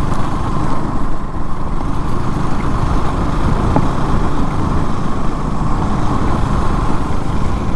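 Steady vehicle running noise on a GoPro's microphone: a low rumble of engine, wind and road that stays even throughout.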